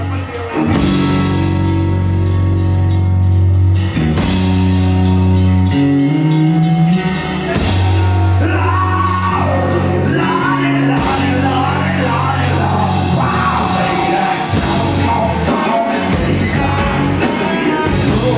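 Rock band playing live: distorted guitar and bass hold long, heavy chords that change every couple of seconds, and about halfway through a sung vocal line comes in over the band.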